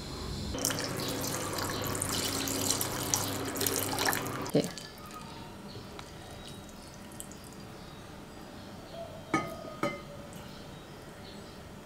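Water running for about four seconds and stopping with a knock. Then, quieter, wet noodles dripping and two light clicks of chopsticks against a bowl.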